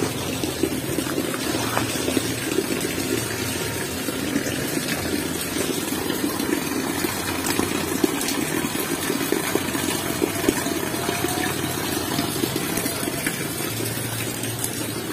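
Water pouring steadily in a thin stream into a concrete tank, a continuous splashing that does not let up.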